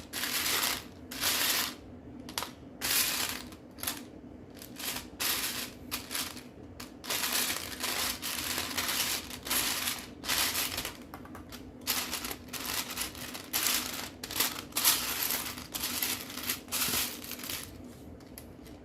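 Loose plastic Lego pieces clattering and rattling as a hand sifts through a pile of them, in irregular bursts throughout, over a faint steady hum.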